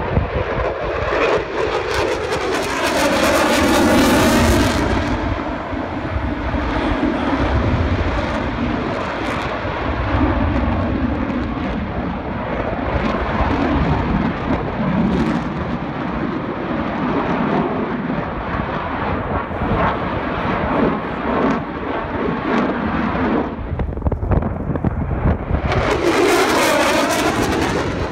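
Propeller warbird's piston engine in a flying display. The engine note swells and falls in pitch as it passes a few seconds in, drones on more distantly as it circles, then sweeps past loudly again near the end.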